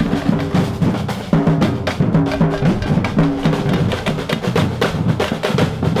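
Percussion band of bass drums and snare drums playing a steady, dense drum rhythm.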